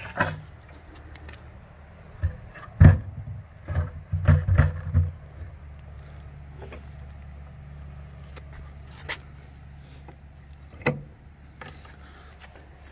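Handling noise: scattered knocks and clicks as a hand works around a plastic bucket waterer, the loudest about three seconds in and a quick cluster around four to five seconds, over a steady low rumble.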